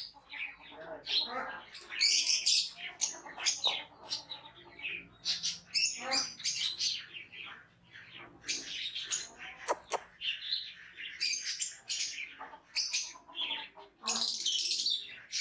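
Many short, high-pitched chirping calls in quick irregular runs, with a brief sharp tone about ten seconds in.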